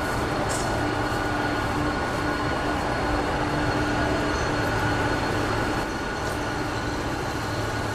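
Boeing 747-400's four turbofan engines running at taxi power as the jet rolls in: a steady rumbling roar with a few constant high whining tones.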